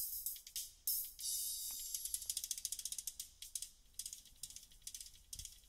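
Music played through a car-audio tweeter alone, high-passed at 4 kHz with a 24 dB slope. Only the very fine top end comes through: a thin sizzle and rapid high ticks, with no body, bass or midrange.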